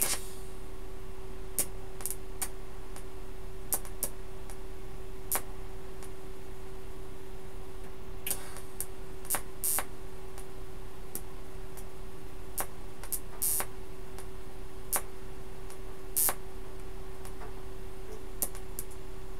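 TIG welder tacking thin steel body sheet: a steady hum with short sharp crackles at uneven intervals, roughly one a second.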